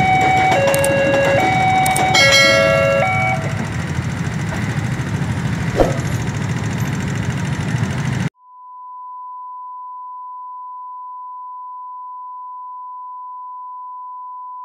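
An electronic railway level-crossing warning signal sounding two alternating tones, switching about every half second, over the noise of idling traffic; the alarm stops after about three seconds. About eight seconds in, the sound cuts off abruptly and a steady single-pitch test tone sounds.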